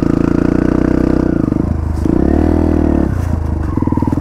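Small 140 dirt bike's engine running under throttle. The revs drop about one and a half seconds in, swell up and fall back once, then hold steady again.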